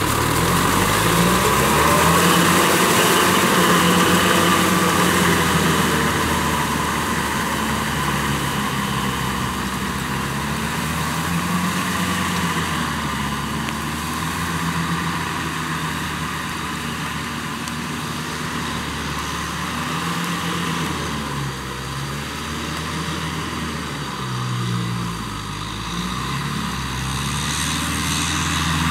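Kubota M6040SU tractor's four-cylinder diesel engine running under load while driving a Maschio rotary tiller through wet paddy soil. Its pitch rises and falls as the load changes.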